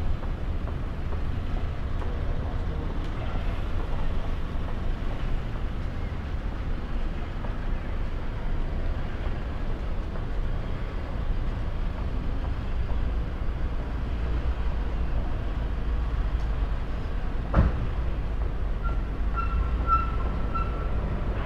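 Outdoor city-street background noise: a steady low rumble with a haze of distant traffic. A single sharp knock comes about three-quarters of the way through, and a faint thin high tone sounds near the end.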